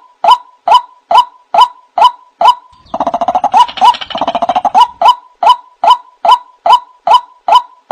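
White-breasted waterhen (ruak-ruak) lure call: a short note repeated evenly, about two and a half times a second. From about three to five seconds in, a faster chattering run overlaps it.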